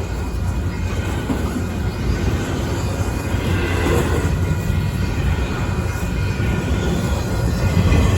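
Union Pacific intermodal freight train running past, a steady low rumble of locomotives and wheels on rails that grows slightly louder.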